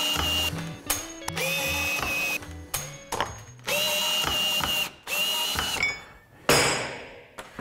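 Cordless drill-driver running in three bursts of about a second each, each rising briefly in pitch as it spins up, backing screws out of the spray booth door hinges. A short, louder hiss-like noise comes near the end.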